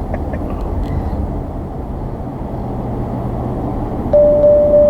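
Steady road and engine noise inside a moving tow vehicle's cab, then about four seconds in a single loud, steady beep lasting about a second: the navigation unit's speed-limit warning, as the vehicle is a couple of miles per hour over the limit.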